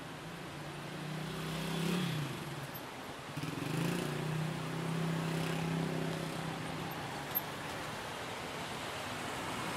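Street traffic: a motor vehicle engine passes, its pitch dropping about two seconds in, then a second vehicle's engine runs by for a few seconds, over steady street noise. A single sharp click comes near the end.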